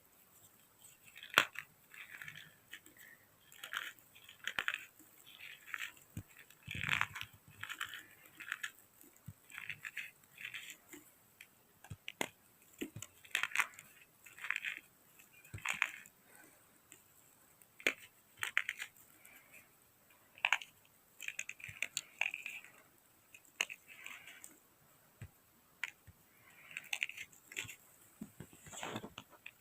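A person biting and chewing crunchy chunks of chalk, close to the microphone. Gritty crunches come in short bursts about once a second, with sharp clicks between them.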